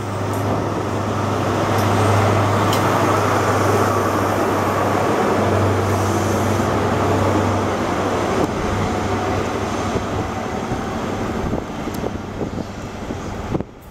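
Departing InterCity 125 (HST) passing close, its rear Class 43 power car's diesel engine giving a steady low drone over wheel and rail noise from the coaches. Loudest a couple of seconds in, it eases as the train pulls away and cuts off suddenly just before the end.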